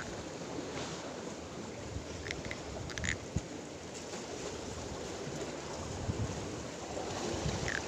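Steady wind and sea noise, with a few faint clicks around the middle.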